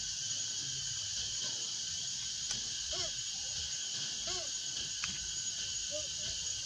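Steady high drone of insects, with three short rising-and-falling calls about a second apart in the second half, and a faint click shortly after five seconds.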